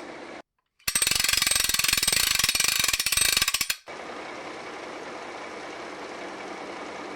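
Loud, rapid mechanical clicking, many clicks a second, cut off once by a brief silence and then running again for about three seconds before stopping abruptly. A quieter steady mechanical noise follows.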